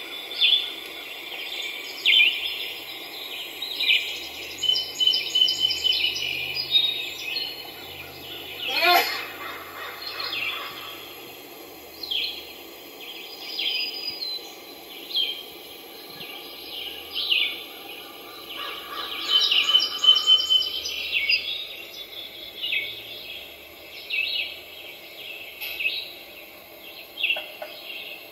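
A small bird chirping over and over: short high calls about once a second, with a couple of longer trills. About nine seconds in, one long whistle falls steeply in pitch.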